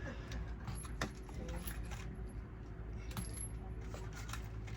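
Scattered light metallic clicks and clinks of cartridges being pressed into a firearm magazine.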